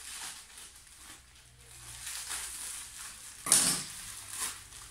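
Plastic mailer packets rustling and crinkling as they are handled and opened by hand, with one sharp, loud crackle of plastic about three and a half seconds in.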